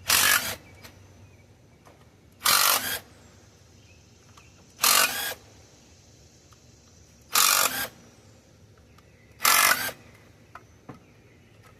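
A handheld power tool spinning out the valley cover bolts on a 5.3 LS V8, in five short bursts of about half a second each, one roughly every two and a half seconds.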